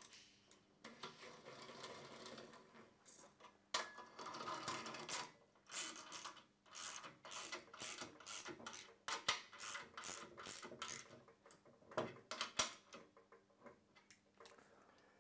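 Ratchet wrench clicking in quick runs, a string of sharp clicks, as the nuts are run down onto the rear main bearing cap studs of a Holden V8 block.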